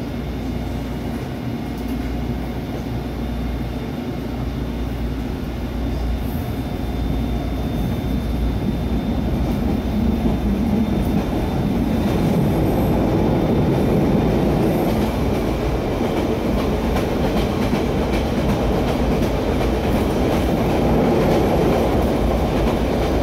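A SEPTA Route 101 Kawasaki light-rail trolley pulls away from a stop and picks up speed, heard from inside the car. Its steady running noise grows louder over the first dozen seconds, and the wheels click over rail joints.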